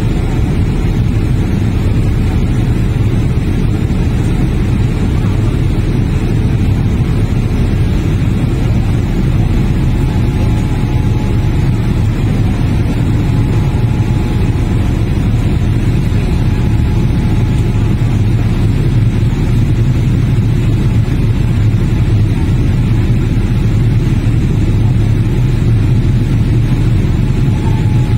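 Loud, steady cabin roar of a jet airliner climbing after takeoff, heard from a window seat over the wing: engine noise and rushing air, mostly a deep rumble. A faint steady whine comes in and out from about ten seconds in.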